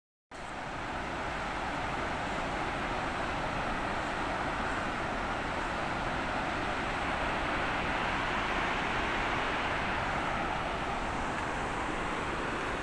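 Steady rushing of a whitewater mountain river tumbling over boulders.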